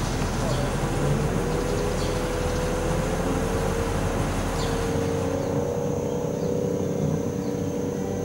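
Mobile boat hoist (travel lift) running: steady machine noise with a whine that rises slightly in pitch, and its low rumble drops away about five seconds in.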